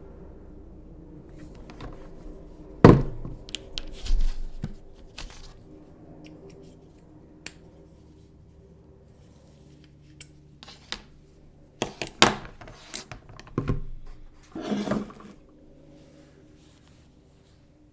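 Hands handling an Apple TV box and its packaging: scattered taps, knocks and light rustles. The loudest is a sharp knock about three seconds in, with another cluster of knocks and handling noises past the middle.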